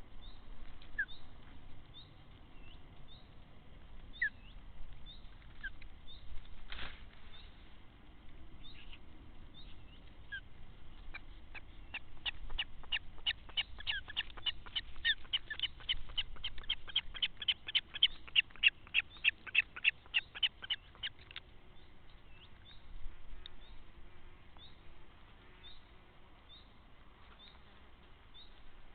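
A common carp out of water flapping: a fast run of sharp slaps, about four or five a second for some ten seconds, growing louder before stopping abruptly. There is also one louder single knock earlier, and faint short chirps recur throughout.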